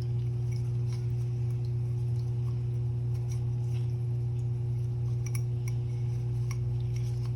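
A steady low hum with a fainter steady higher tone, unchanging throughout, with a few faint light clicks and clinks from small parts being handled, about five seconds in.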